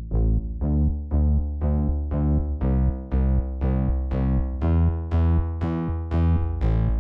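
Electronic background music: a synthesizer pulsing in an even rhythm of about two or three notes a second, growing steadily brighter as it goes.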